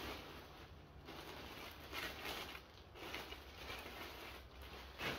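Clear plastic packaging bag crinkling and rustling in irregular soft bursts as a bagged winter jacket is handled.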